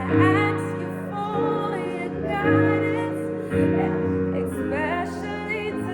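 Music: a singing voice with vibrato over sustained keyboard chords that change about every second.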